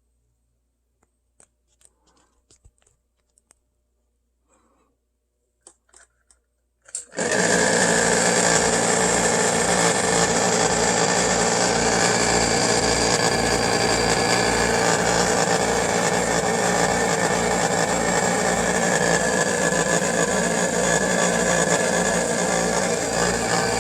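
A few faint clicks, then about seven seconds in a Jun-Air Model 3-4 oil-lubricated piston air compressor starts and runs steadily with a low pulsing throb. The owner regards this noise as a problem with the compressor.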